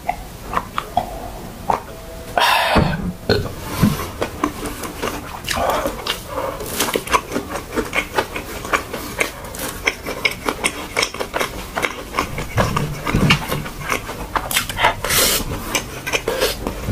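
Close-miked mukbang mouth sounds: a swallow from a glass of iced tea, a loud breathy sound about two seconds in, then steady wet chewing with many quick smacks and clicks as fried spam and fried rice are eaten by hand.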